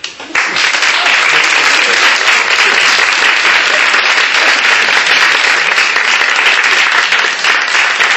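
Audience applauding, the clapping breaking out suddenly a moment in and keeping up steadily.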